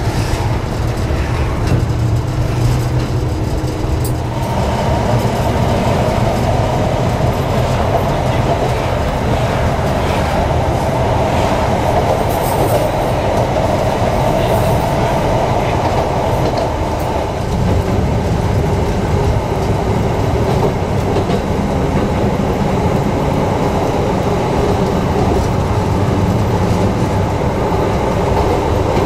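Blackpool twin-car tram running along its track, heard from inside the car: a steady rumble of wheels on rail and running gear. A humming tone joins in about four seconds in and drops away around sixteen seconds.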